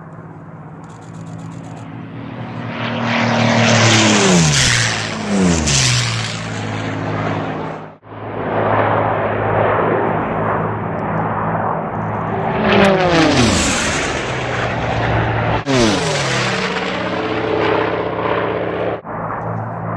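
Race planes flying fast and low past a course pylon, several passes in turn. On each pass the engine note swells and then drops sharply in pitch as the plane goes by. The sound breaks off abruptly three times.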